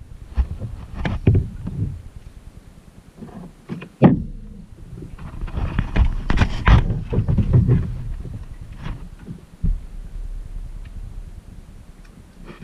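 Kayak paddling in a sea cave: irregular knocks and water splashes from the paddle and hull, with a sharp knock about four seconds in and a busier run of strikes and splashing a little later.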